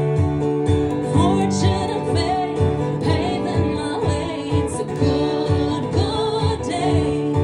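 Live country band playing an instrumental passage: guitar melody lines with gliding notes over held chords, bass and a steady beat.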